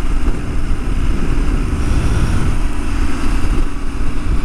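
Motorcycle running at a steady cruising speed, its engine rumble under a constant rush of wind on the microphone.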